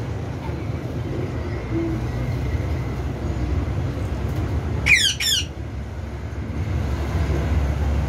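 Cockatiel giving two quick squawks, each sweeping down in pitch, about five seconds in, over a steady low rumble.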